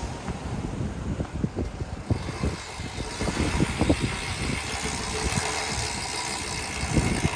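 A motor engine running steadily, with irregular low thumps and a hiss that grows louder about halfway through.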